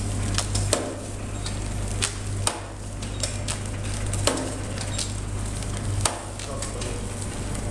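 Powder sachet packing machine running: a steady low motor hum with repeated sharp clacks, about one every half second to second, as the foil sachet strip is fed out.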